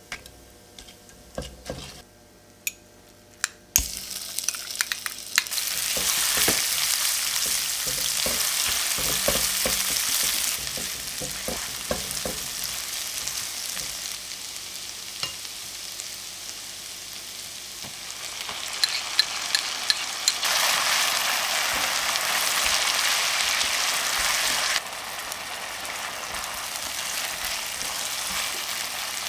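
Light clicks and taps of a silicone spatula among whole spices in a pan, then chopped onion hits the hot oil about four seconds in and sizzles steadily while it is stirred and scraped. The sizzle grows louder about two-thirds through, then drops suddenly near the end.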